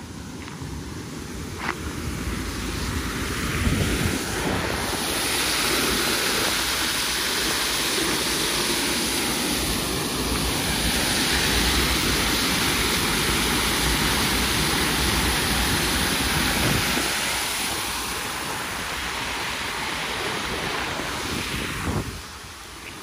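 Water pouring over a low concrete weir into foaming water below. A steady rushing swells about four seconds in and eases off near the end.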